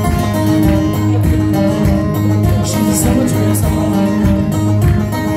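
Live country song played through a PA: strummed acoustic guitar and a second guitar over a steady bass line, with singing.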